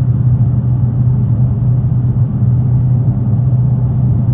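Dodge Challenger Hellcat's supercharged 6.2-litre V8 cruising at a steady speed: a steady low exhaust drone with road noise, heard from inside the cabin.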